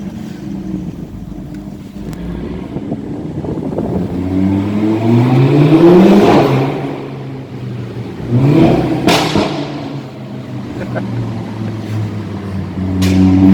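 Modified car engine being revved: the pitch climbs for about two seconds to a peak, then falls back. A second quick rev comes with a sharp crack, and another climb starts near the end.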